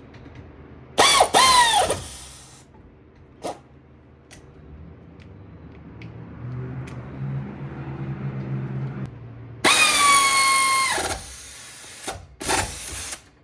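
Cordless power tool snugging the brake caliper guide bolts: two whining runs of about a second and a half, one about a second in and one about ten seconds in, each winding down at its end, then a shorter burst near the end.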